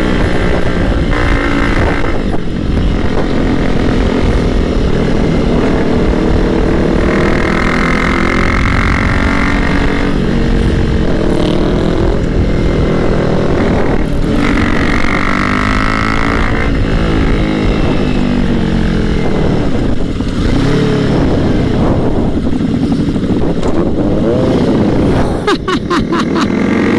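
Sport motorcycle engine running hard under the rider, its pitch climbing and dropping again and again as it accelerates and shifts through the gears.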